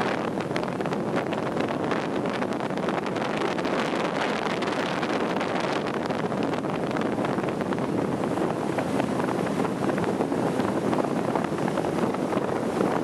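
Steady wind rushing and buffeting over the microphone aboard a sightseeing boat under way, mixed with the boat's own rushing noise over open water.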